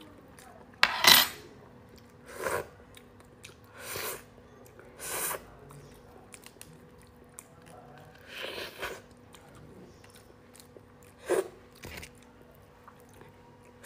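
A cooked starfish being taken apart and eaten: its spiny arm shell is cracked and pulled apart by hand and the yellow insides scraped out with a spoon. This comes as a series of about seven short crackles and scrapes, the loudest about a second in, with chewing.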